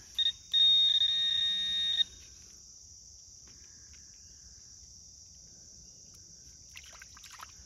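Handheld metal-detector pinpointer alerting: a short beep, then a loud, steady, high-pitched buzzing tone for about a second and a half, the signal that metal is right at its tip.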